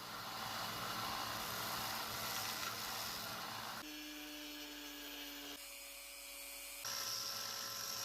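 Power grinder running with abrasive hiss as epoxy is ground off the sides of a knife's wooden handle, the sound changing abruptly a few times as short clips follow one another, at times with a steady motor hum.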